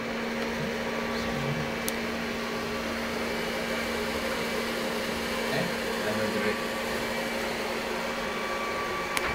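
Steady whir and hum of equipment cooling fans, with a few held tones running under it, and a faint click about two seconds in.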